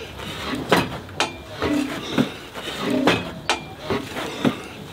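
Repeated sharp metallic clinks and knocks, roughly one a second, with short low tones between them.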